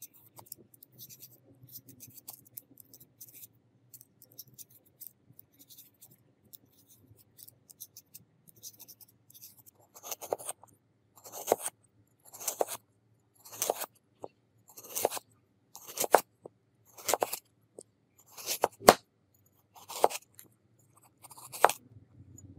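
A vegetable peeler scraping the skin off a raw potato in many quick short strokes. About ten seconds in, a knife starts slicing the peeled potato into thin rounds on a wooden cutting board, about ten cuts roughly a second apart, each ending against the board.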